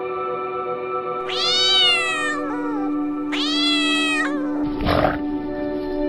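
A cat meowing twice, each meow a drawn-out call that rises and then falls in pitch, over steady background music. A short rough burst of noise follows just before the end.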